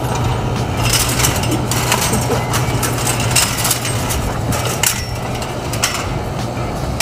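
Footsteps and scattered sharp knocks and clicks of movement over a steady low hum.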